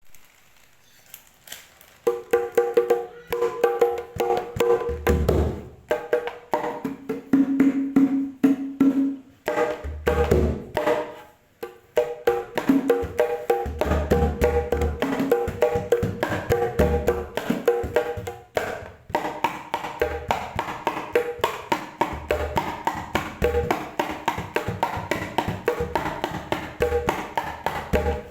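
Sundanese kendang jaipong hand drums played in fast rhythmic patterns: rapid sharp slaps and ringing mid-pitched tones, with occasional deep bass strokes, starting about two seconds in and pausing briefly twice.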